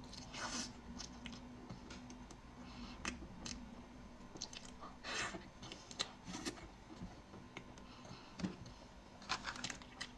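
Close-up eating sounds: bites and chewing of soft, cream-filled snow skin mochi (xuemeiniang), heard as short separate mouth sounds every second or so. Near the end, a mochi is pulled apart by hand.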